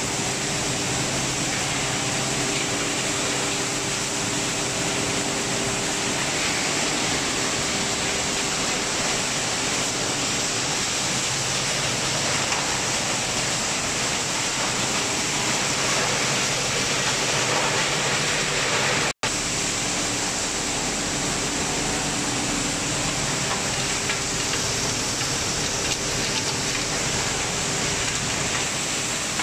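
Rigid plastic washing line running: a steady, loud wash of machinery noise with a low motor hum and rushing, splashing water from the wash tanks. The sound drops out for an instant about two-thirds of the way through.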